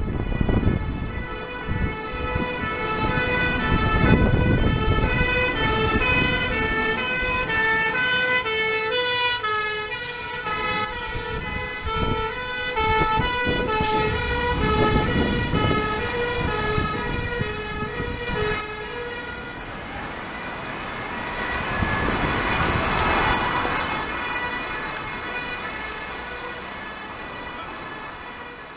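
Two-tone sirens of two Scania fire engines sounding together out of step, alternating high and low notes, over the rumble of their diesel engines as they pull past close by. After about twenty seconds the clear two-tone notes fade into a fainter, blurred siren sound as the appliances move away.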